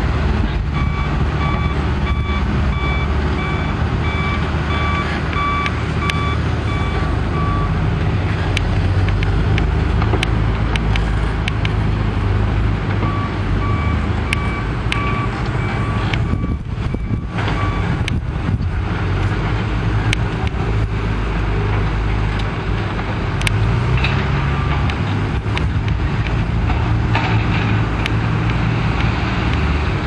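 Diesel engines of John Deere backhoe loaders running under load while digging, with a reversing alarm beeping steadily for the first several seconds and again for a few seconds about halfway through. Occasional sharp clanks.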